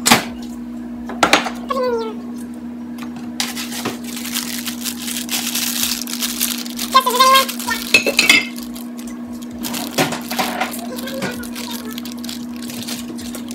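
Kitchen dishes and utensils clinking and knocking in irregular strokes while cookie ingredients are prepared, with a few seconds of rustling noise in the middle and a steady low hum underneath.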